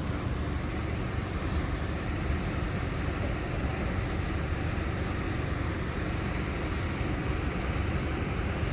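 Boat motor running steadily with a low rumble.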